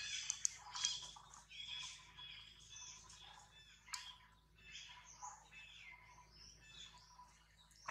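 Small birds chirping faintly, many short overlapping calls, with a few sharp clicks.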